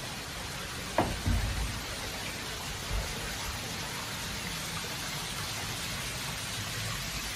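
Steady, rain-like hiss of water dripping and trickling in a wet mine slope. A sharp knock comes about a second in, another follows just after, and a softer thump comes about three seconds in.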